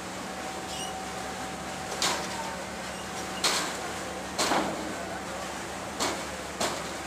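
Lake water and wind rushing steadily, with five sharp, irregular slaps of waves breaking against the shore.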